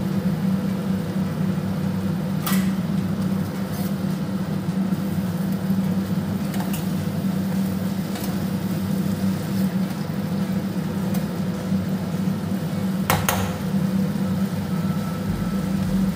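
A steady low hum throughout, with a few sharp clicks of a spatula against a frying pan as a simmering fish curry is stirred.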